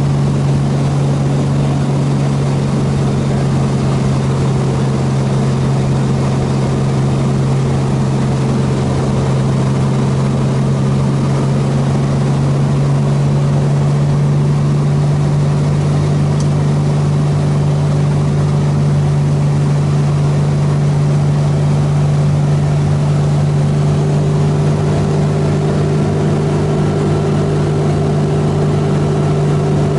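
Helio Courier's geared Lycoming GO-480 flat-six engine and propeller droning steadily in flight, heard inside the cabin along with the rush of the airflow.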